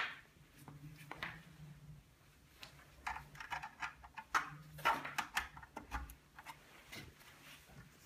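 Scattered light clicks, taps and rustles of cables and a plug being handled and pushed into the ports on the back of a computer monitor.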